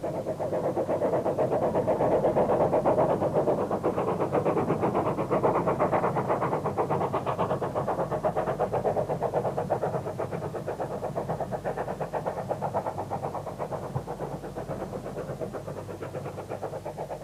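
An engine running with a fast, even beat that slowly fades away.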